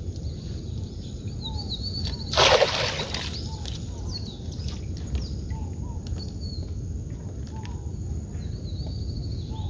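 A cast net thrown from a canoe lands on the water about two and a half seconds in, a brief loud splash. Birds chirp over and over through the rest.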